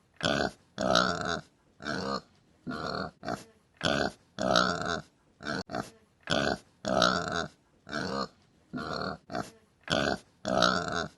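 Pig grunting, a long run of short calls at about one or two a second, some a little longer than others.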